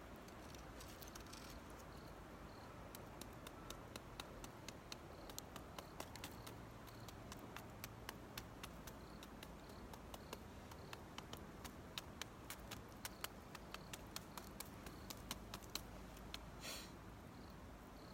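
Campfire crackling: burning wood giving off irregular sharp pops and snaps, thickest through the middle, with a brief hiss near the end. A faint insect chirps at an even pace throughout.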